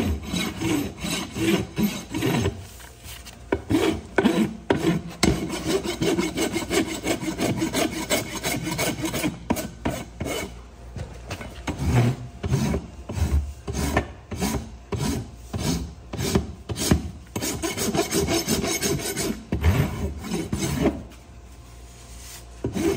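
Hoof rasp filing a horse's hoof in quick, repeated strokes, with brief pauses about two seconds in and near the end.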